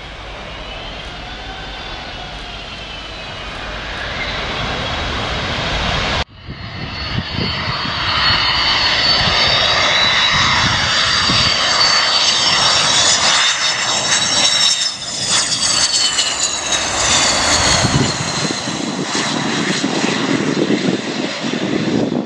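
A Boeing 777-300ER's jet engines on landing approach, growing louder with a faint falling whine. After a sudden cut about six seconds in, a de Havilland Sea Vixen's twin jet engines take over: a loud jet noise with high whining tones that rise and fall as it passes low.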